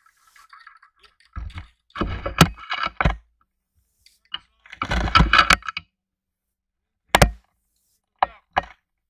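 Suppressed gunshots, each a sharp crack, about two and a half and seven seconds in. Spells of rustling clatter come between them, and two short clicks near the end.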